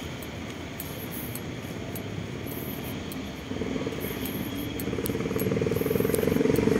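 Steady outdoor traffic noise, then about halfway through a motor vehicle's engine hum comes in and grows steadily louder as it draws closer.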